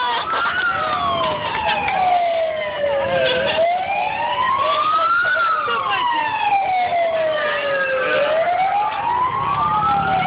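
An emergency-vehicle siren wailing, its pitch sliding slowly up and down and peaking about every five seconds, with fainter siren sweeps crossing it.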